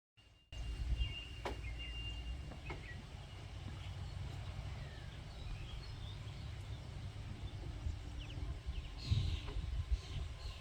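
A steady low rumble of background noise, with a few faint, high bird chirps about a second in and again near the end.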